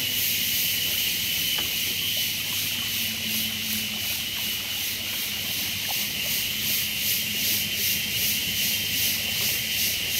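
A steady high hiss with a faint low hum beneath it, even in level throughout, with a couple of faint ticks.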